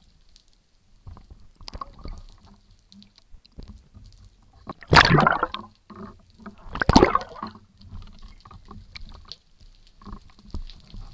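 Muffled underwater sound heard through a camera housing: water moving and bubbles, with scattered faint ticks and two loud rushes about five and seven seconds in.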